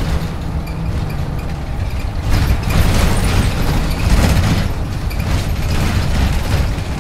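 Heard from inside the cabin, a 1996 Hino Blue Ribbon city bus (KC-HU2MPCA) runs with a loud, steady diesel engine rumble and body rattles; the engine swells louder twice, about two and four seconds in.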